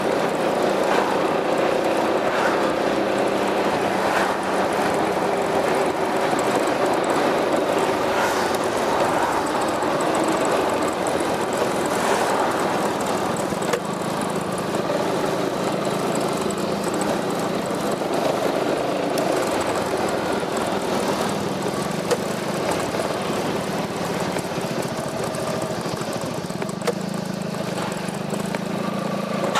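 Piaggio MP3 400 scooter's single-cylinder four-stroke engine running through an aftermarket Akrapovič exhaust, a steady engine note under a haze of noise.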